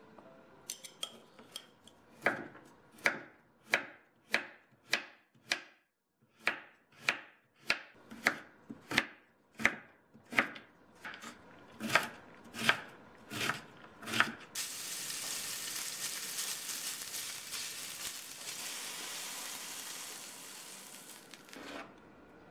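Kitchen knife dicing carrot on a bamboo cutting board: slow, even chops, about three every two seconds, with a short break about six seconds in. Then a steady hiss for about seven seconds, stopping shortly before the end.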